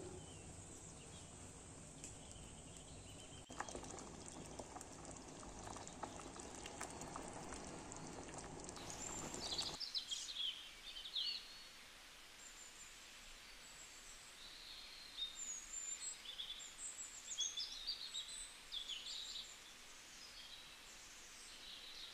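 Pot of plum jam simmering with a soft, even bubbling hiss. About nine seconds in this cuts off, and faint, scattered bird chirping takes over.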